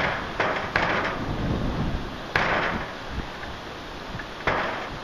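Heavy thunderstorm rain with a steady wash of noise, broken by sudden sharp bursts of splashing noise that fade over about half a second: three close together near the start, one about two and a half seconds in, and one near the end.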